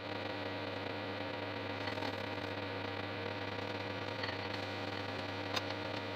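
Steady hiss of a pancake cooking in a frying pan over a lit gas burner, with a constant low hum under it. There is a faint tap about five and a half seconds in.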